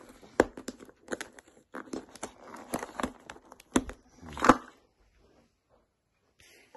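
A plastic toy capsule being handled and twisted open: a run of sharp clicks and crinkles, with the loudest crack about four and a half seconds in. After a short quiet, rustling of the paper wrapping starts near the end.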